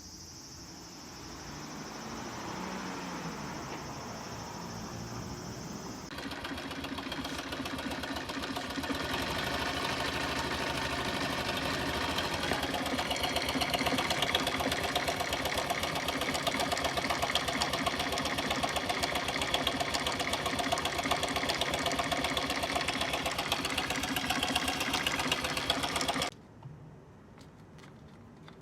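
Honda Super Cub 90's small air-cooled single-cylinder four-stroke engine running with a fast, even mechanical clatter: the abnormal noise the owner is tracking down. It gets louder about six seconds in and cuts off abruptly near the end.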